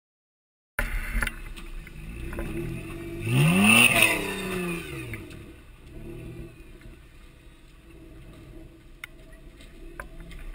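Lifted 4x4 truck's engine revving while crawling over a log obstacle, with one rising rev about three and a half seconds in as the loudest moment, then running at low revs. A couple of sharp clicks near the end.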